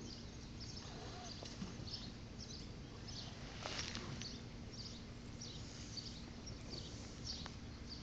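Faint, short high-pitched chirps repeating roughly twice a second over a low steady hum: outdoor animal calls, with no firework going off.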